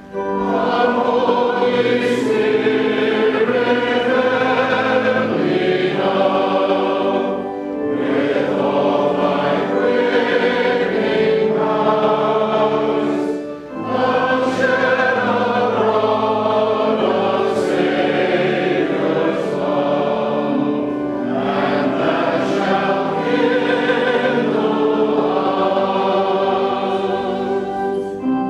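A church choir singing a hymn in chorus, the sustained notes broken by short pauses between phrases. This is the hymn sung between the Epistle and the Gospel.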